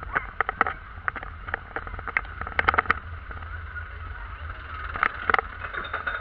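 Onboard a Python steel roller coaster train as it rolls along its track with irregular clacks and rattles over a steady mechanical hum and low rumble, then starts up the lift hill, with two more sharp clacks about five seconds in.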